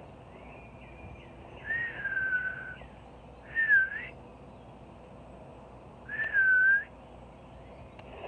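A person whistling three short notes, each a clear tone with breath around it: the first falls and then holds, the second dips and rises, the third falls.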